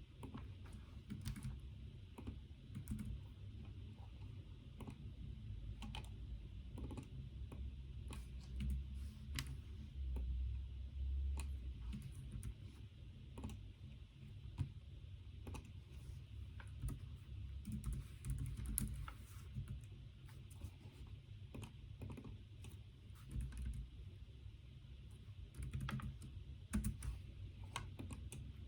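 Typing on a computer keyboard: irregular keystrokes in uneven runs and pauses, over a low steady background hum.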